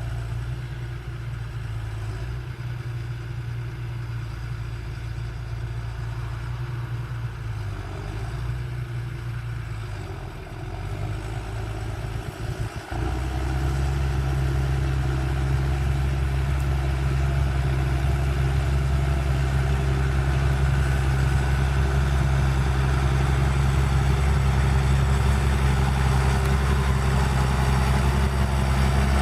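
Massey Ferguson 5465 tractor's diesel engine running steadily while ploughing. About thirteen seconds in the sound breaks off and picks up louder, with a deeper, fuller engine note.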